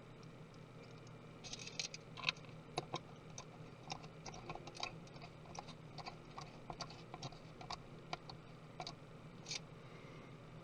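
Light, irregular clicks and taps of small tools and laptop parts being handled, several a second from about a second and a half in, over a faint steady hum.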